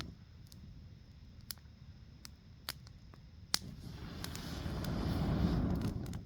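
Small wood campfire crackling, with sharp irregular pops and snaps, over a low rush of noise that swells in the second half and fades near the end.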